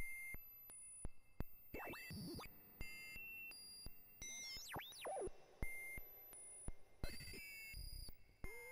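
Kinetik Laboratories GORT The Robot step pulse generator running its 16-step sequence: electronic beeping tones that jump in pitch several times a second, each step marked by a click. Several times the pitch swoops up and down as the oscillator frequency knobs are turned.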